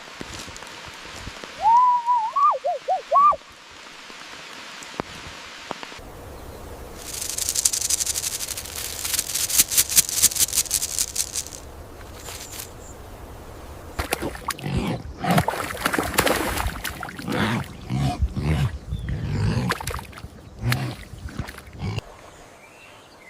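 Several different animal calls in turn: a short run of high squeaky calls, then a fast high rattling trill of clicks, then a run of irregular low grunting calls.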